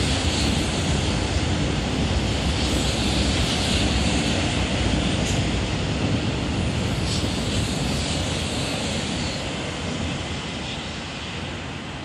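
Seoul Metro Line 2 train with MELCO chopper control running past on an elevated track: a steady rumble of wheels on rails that fades over the last few seconds as the train moves away.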